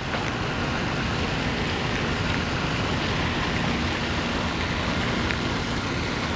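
Steady outdoor background noise: an even rushing sound with no distinct event.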